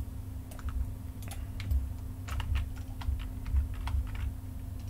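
Computer keyboard keystrokes, short irregular clicks a few per second, over a steady low hum.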